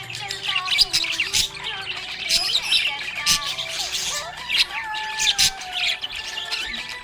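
Budgerigars chattering: a dense run of overlapping chirps, warbling glides and sharp squawks.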